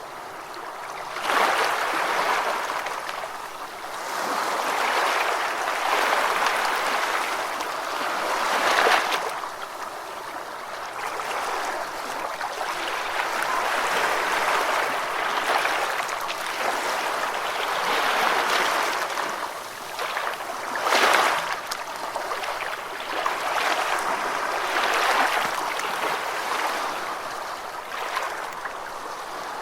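Gentle ocean waves washing onto a beach: a steady hiss of surf that swells and ebbs every few seconds, with a few louder surges as waves break.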